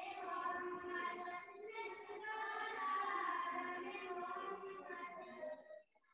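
A high-pitched voice singing, holding drawn-out notes, that breaks off shortly before the end.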